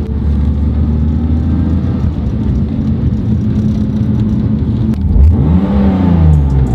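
BMW E36's engine heard from inside the cabin, running steadily under way. About five seconds in, the revs briefly rise and fall.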